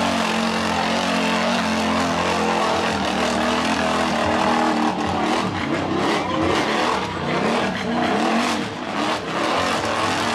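Lifted mud ATV's engine revving hard under load as it churns through deep mud and climbs over obstacles. It holds steady high revs at first, then rises and falls repeatedly from about four seconds in as the rider works the throttle.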